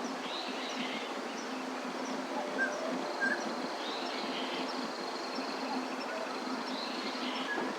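Outdoor ambience: a steady background hum with short, scattered bird chirps and a few longer arched calls.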